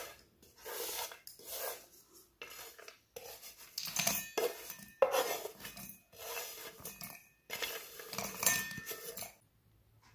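Roasted peanuts, cumin and grated coconut tipped and scraped from a frying pan into a stainless-steel mixer-grinder jar: irregular metallic clattering and scraping, with nuts rattling against the steel. It stops shortly before the end.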